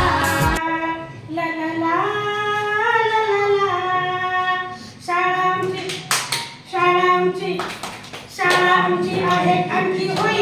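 Unaccompanied singing of a Marathi song, with long held notes that glide from pitch to pitch. A music track cuts off just after the start, and a few sharp claps or knocks come about six seconds in.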